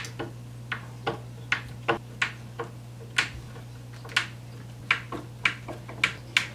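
Hand screwdriver driving screws to fix a cabinet door's hinge, giving a series of irregular sharp clicks, about two a second, over a steady low hum.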